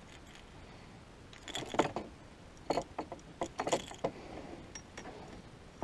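Baitcasting reel being cranked in short bursts of clicking and rasping, about a second and a half in and again around three to four seconds in, as a hooked bass is reeled in.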